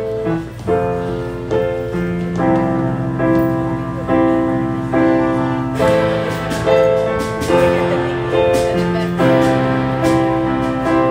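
Worship band's instrumental intro: keyboard playing sustained chords re-struck at a steady pulse a little faster than once a second, leading into the first verse, with no singing yet.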